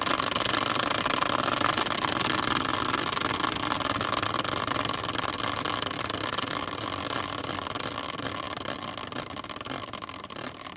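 Hand-spun caster wheel whirring on its axle in a metal swivel bracket, a steady rattling whir that slowly dies away as the wheel coasts toward a stop.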